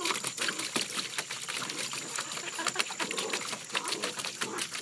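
A puppy's paws splashing and sloshing through shallow water in a plastic kiddie pool, a steady run of small quick splashes.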